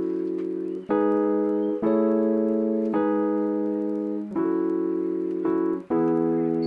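Background music: sustained keyboard chords held and changing about every second or so, five changes in all.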